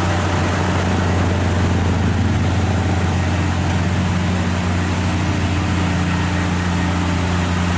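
Heavy truck's diesel engine running steadily under load, a deep constant hum with road noise.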